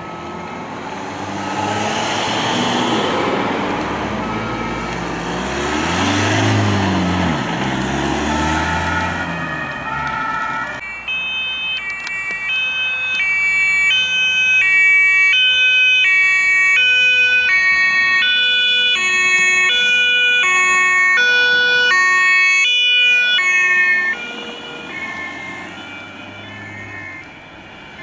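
German two-tone emergency sirens (Martinshorn) alternating between a high and a low note. For the first ten seconds an ambulance and a patient-transport van pass close with their engines and tyres, and the engine pitch bends as they go by. After an abrupt change, a THW van's two-tone siren sounds louder and clearer, then drops away about four seconds before the end.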